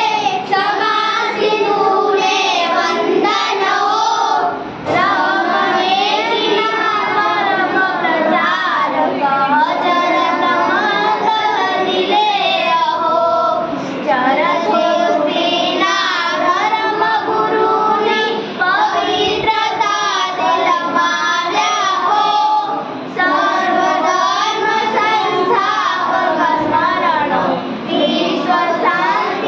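Young girls singing a Gujarati school poem together, with short breaks between lines.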